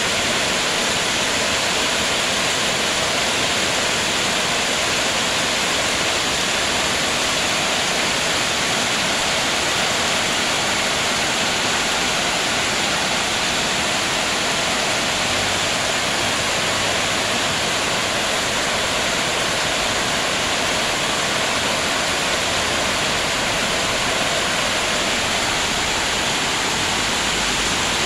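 Heavy monsoon rain pouring steadily onto standing floodwater, a dense, even hiss of splashing drops.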